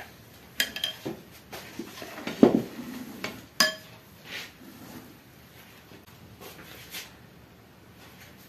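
A spoon knocking and clinking against a glass bowl as gram-flour (besan) batter is stirred. There are a few scattered taps in the first half, including one sharp clink that rings briefly about three and a half seconds in, and a last light tap near the end.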